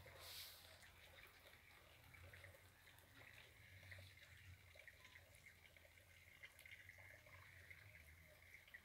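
Near silence: the faint ambience of a rainy evening outdoors, with small frogs calling as a faint steady high ticking ("tic tic tic") and a brief hiss near the start.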